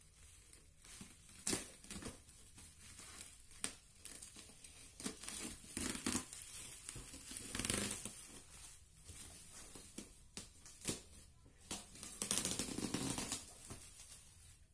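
Plastic bubble wrap being cut open and pulled off a cardboard box: irregular crinkling, rustling and tearing, with a few sharp clicks.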